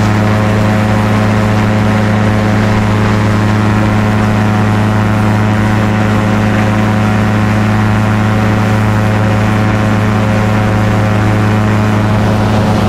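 Small open-cockpit light aircraft's engine and propeller running steadily in flight at a constant pitch.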